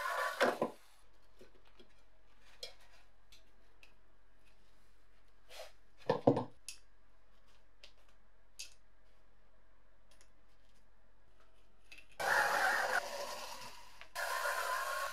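Cordless drill-driver motor whining as it turns screws in the scale's base: one short run at the start, then two runs near the end. In between, a few light clicks and knocks of small parts being handled.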